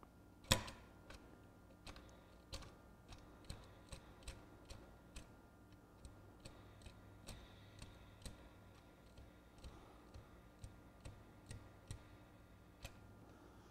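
Light clicks and ticks of small plastic and metal parts in a Sanyo 4400 Betamax VCR's reel mechanism being handled by fingers, irregular and one to two a second, the loudest about half a second in.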